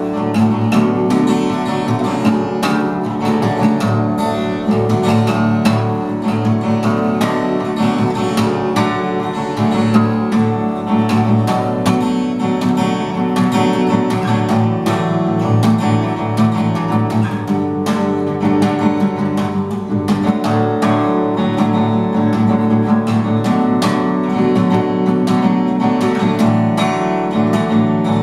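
Acoustic guitar strummed in a steady rhythm, a song's chords played live.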